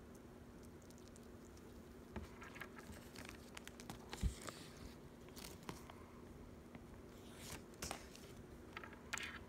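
Sugar glider nibbling and crunching a treat: faint, scattered small crackles and clicks, with one low thump about four seconds in.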